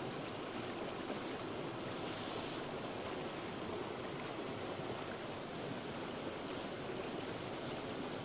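Mountain stream running steadily, an even rush of flowing water, with a short higher hiss about two seconds in.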